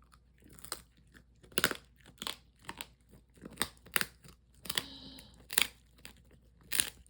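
Crunchy food being chewed: about ten sharp, irregular crunches, one or two a second, starting about a second in.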